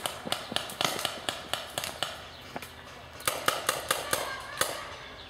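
Paintball markers firing a quick string of sharp pops for about two seconds, then, after a short pause, a second rapid volley starting a little past three seconds in.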